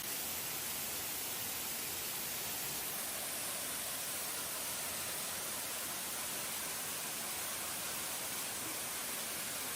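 Steady rush of a waterfall pouring into its pool: an even, hissing wash of falling water.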